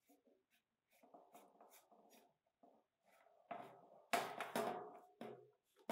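A rod-rest fork being worked through a hole in an aluminium bracket on a metal board: light scraping and clicking at first, then several louder metallic knocks with a brief ring, about three and a half to five seconds in.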